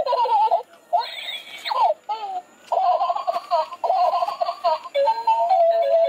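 Crawling baby doll toy playing recorded baby giggles through its small speaker, repeated about once a second, then switching about three seconds in to a simple electronic tune.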